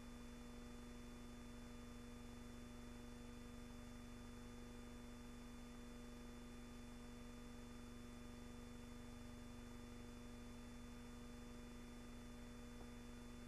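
Near silence: a steady electrical hum with faint hiss from the soundtrack, with no gunfire or other events.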